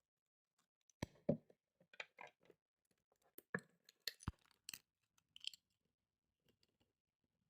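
Faint, scattered clicks, knocks and rustles of a plastic-packaged 4x4 puzzle cube being handled and unpacked by hand, the loudest knocks about a second in and again about three and a half seconds in.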